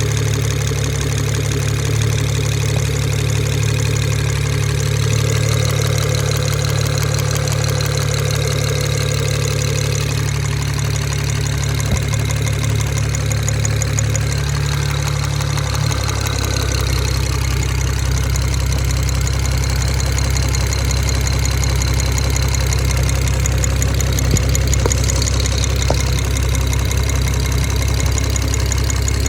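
BMW 335i's N54 twin-turbo straight-six idling with a fast, light ticking or knocking over the running; its low note shifts downward about halfway through. The owner is unsure whether the tick is valve tapping or a rod bearing.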